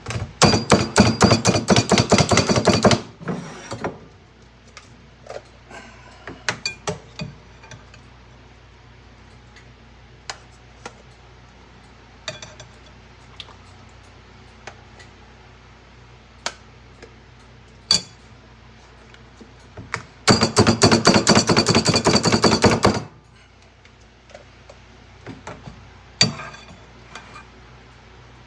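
Slap Chop hand chopper slapped down rapidly on cooked shrimp in a bowl: two runs of fast, loud clacking, each about three seconds long, one right at the start and one about twenty seconds in. Between them come scattered lighter knocks and clicks.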